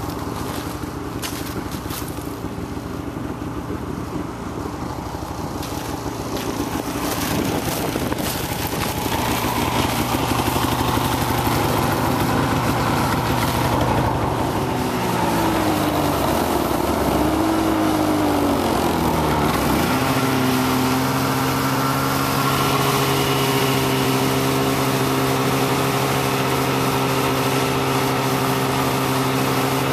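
Snowmobile engine running, revving up and down with rising and falling pitch about halfway through, then running at a steady pitch as the sled travels along the trail.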